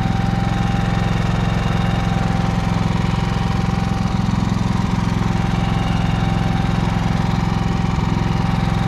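GenMax GM10500iETC tri-fuel inverter generator's 458 cc four-stroke OHV engine running steadily on natural gas, under the load of a 7,200-watt heater, with a thin steady whine above the even engine drone.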